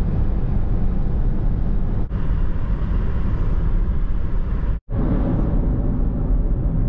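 Steady road and engine noise inside a moving car's cabin, a low rumble with tyre hiss. It cuts out for an instant about two seconds in and again near five seconds.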